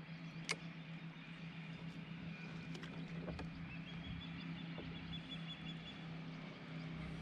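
Faint, steady hum of a distant motor over quiet lakeside ambience, with a single sharp click about half a second in.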